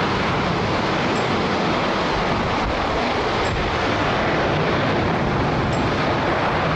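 Airbus A330-300 twin-engine wide-body jet rolling on the runway, its engines making a steady, even rush of jet noise.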